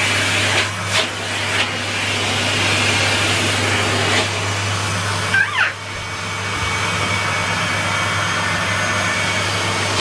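Henry vacuum cleaner running steadily, a constant motor hum under a rush of air. A few light knocks come in the first half, and a brief squeaky glide in pitch about five and a half seconds in.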